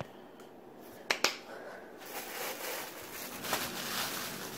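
Two sharp clicks about a second in, then a plastic bag crinkling and rustling as it is handled from about two seconds in.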